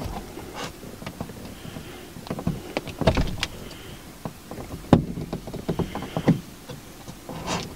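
Plastic pry tool pushing a dash cam power cable into the gap between a car's headliner and A-pillar trim: irregular scrapes, taps and rustles of plastic against plastic trim and fabric.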